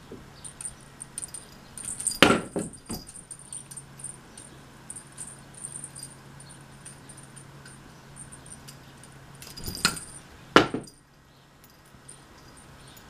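Coiled metal spring of a springy cat toy jingling and clicking as a kitten bats and drags it. Sharp knocks come about two seconds in, with a couple of smaller ones just after, and again near the ten-and-a-half-second mark.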